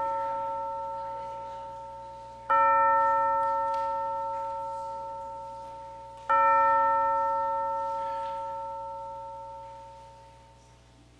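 A bell struck and left to ring, each stroke fading slowly. It is struck again about two and a half seconds in and again about six seconds in, and the last ring dies away near the end.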